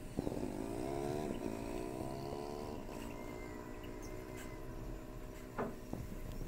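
Labrador dog whining in a long, wavering, drawn-out tone that slowly falls. It is strongest for the first few seconds, then goes on more faintly, and there is a short knock near the end. The dog is whining to be let out.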